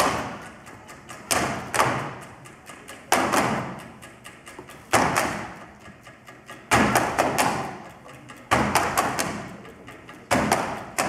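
Rhythmic thumping and knocking on desks, a cluster of hits about every second and three quarters, each fading before the next.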